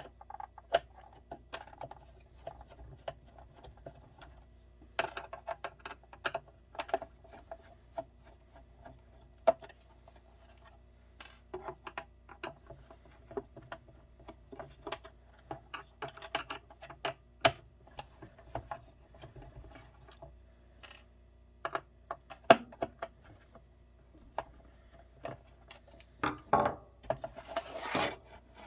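Hands taking a lid apart: scattered clicks, taps and knocks of parts being handled and unfastened, with a louder stretch of rubbing and scraping near the end. A faint steady hum runs underneath.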